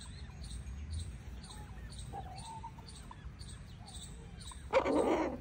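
Chickens calling: high, short peeps repeating about twice a second with softer, wavering clucks under them, and one louder, harsher call near the end.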